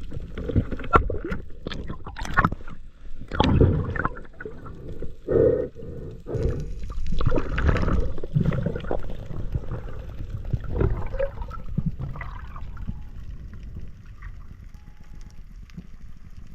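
Underwater water noise, irregular gurgling and bubbling surges with scattered clicks and knocks, easing off near the end.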